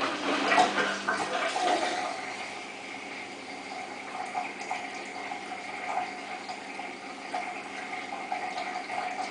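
Samsung WF8804RPA washing machine taking in water. The flow starts abruptly, is loudest for the first couple of seconds, then settles to a steady rush.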